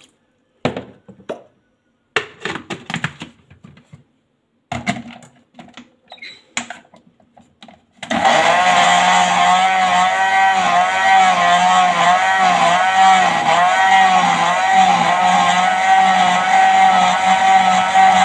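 Countertop blender: a few knocks and clatters as the jar is handled and set on its base, then about eight seconds in the motor starts and runs steadily, blending kale with hibiscus water. Its pitch wavers as the contents churn.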